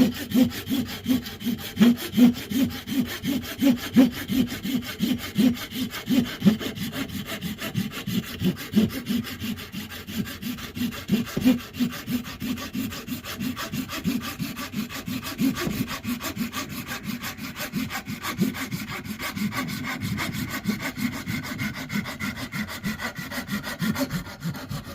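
Hand saw cutting through a wooden stick at an angle, with a steady back-and-forth rhythm of about two strokes a second. The sawing stops near the end as the cut goes through.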